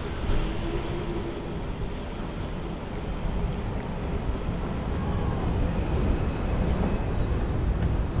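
Steady rush of wind on the microphone of a moving bicycle, over the continuous noise of city traffic and trams.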